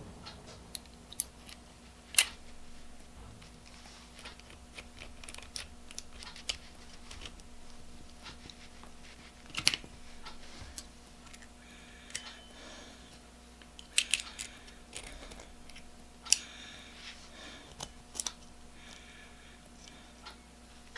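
Scattered light clicks and taps of small metal parts being handled on the bench, the jaws, springs and shell of a Stanley Handyman eggbeater drill chuck, with a sharper click about two seconds in and clusters of clicks around ten and fourteen seconds. A steady faint hum runs underneath.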